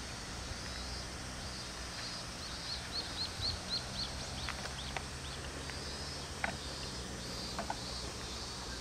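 A bird calling: a quick run of short, high chirps about four a second a couple of seconds in, then scattered single chirps, over a steady low rumble.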